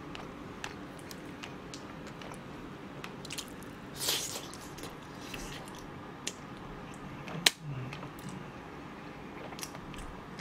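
A person chewing a mouthful of food close to the microphone: soft, wet squishing mouth sounds and small clicks. There is a short breathy hiss about four seconds in and a sharp click a few seconds later.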